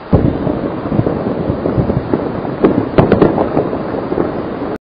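Avalanche sound effect: a loud, dense rumbling of tumbling snow and debris, shot through with sharp cracks, starting with a sudden hit and cutting off abruptly just before the end.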